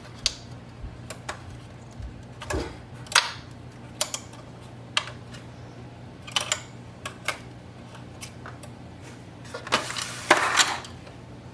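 Scattered sharp plastic clicks and taps as printer parts and the motor wire are handled and freed from the case, with a longer scraping rustle near the end. A steady low hum runs underneath.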